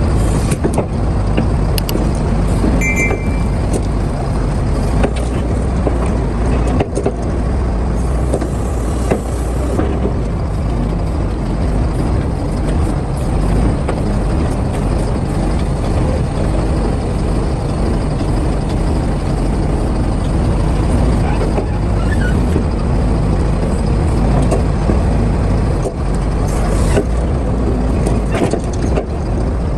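Excavator's diesel engine running steadily under load while loading a dump truck, with occasional knocks and clanks. A couple of short high beeps sound about three seconds in.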